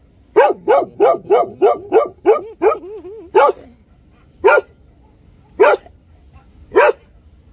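A large black-and-tan dog barking: a quick run of about eight barks trailing into a few softer yelps, then single barks about a second apart.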